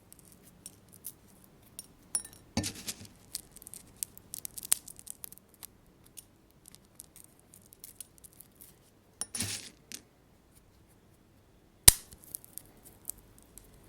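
Sunflower seeds cracking over a glass bowl: irregular small crisp cracks and clicks, with a louder snap about two and a half seconds in and another near the end, and a short rustle around nine and a half seconds.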